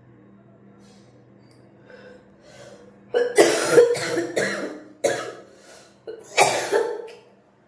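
A woman coughing from a head cold with mucus: faint breaths, then from about three seconds in a run of loud, sharp coughs in three bouts, the last ending near the seven-second mark.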